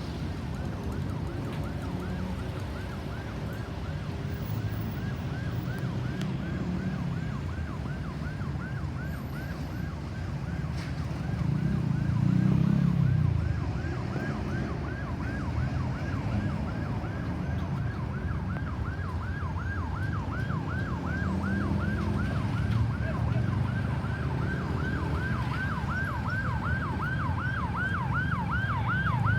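Ambulance siren on a fast yelp, its pitch sweeping up and down a few times a second and growing louder toward the end, over the low rumble of road traffic, with a louder engine swell about twelve seconds in.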